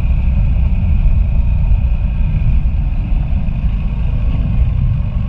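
Motorcycle riding at a steady speed on a dirt road: a continuous low rumble of engine and wind noise.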